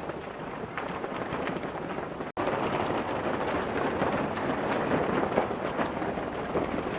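Steady rushing background noise of open-air ambience, with no distinct event in it. It breaks off for an instant about two seconds in and comes back a little louder.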